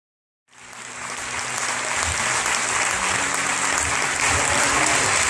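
Audience applause starts from silence about half a second in and builds over a second or so into steady clapping.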